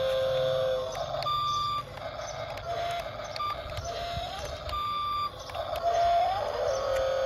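Radio-controlled model construction truck's reversing beeper sounding short beeps at intervals, over the whine of its electric drive motors and gears.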